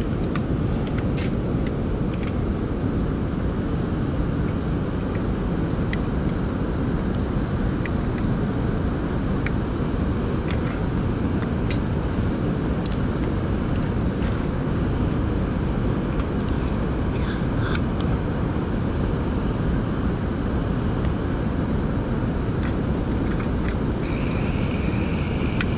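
Steady rushing of a nearby mountain river, with scattered small clicks as a folding camping gas stove and its gas canister are handled. Near the end a hiss starts, as gas begins to flow to the stove burner.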